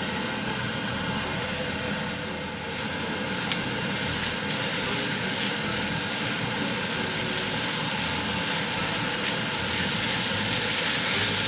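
Noodles and chicken sizzling in a pan on the stove: a steady crackling hiss with faint scattered pops.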